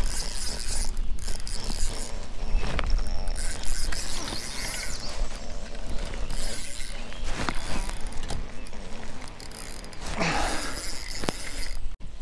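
Fishing reel being cranked, a run of mechanical winding and clicks, with wind rumbling on the microphone.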